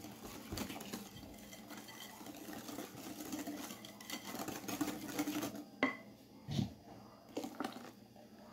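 Wire whisk beating thin chocolate cake batter in a glass bowl: a faint, fast clatter of the wires against the glass, with a couple of sharper knocks about six seconds in.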